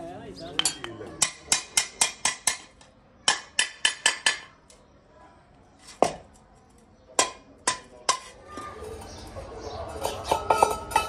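A steel rod tapping on a cast brass hookah piece: runs of sharp metallic clinks, about three a second, then a few single strikes, some with a short ring. Voices come in near the end.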